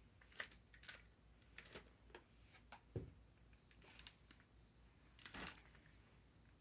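Near silence with faint, irregular light clicks and taps, about a dozen scattered through it.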